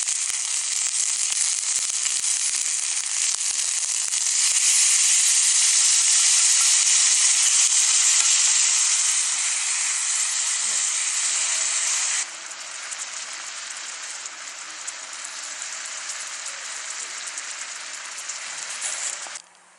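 Chicken frying in a pan: a steady sizzle with small crackling pops. It grows louder about four seconds in, then drops suddenly to a quieter sizzle a little past halfway.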